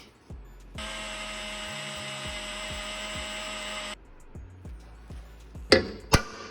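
Power drill running at a steady speed for about three seconds, drilling a mounting hole for the tow hook, then stopping abruptly. A few light ticks follow, and two sharp knocks come near the end.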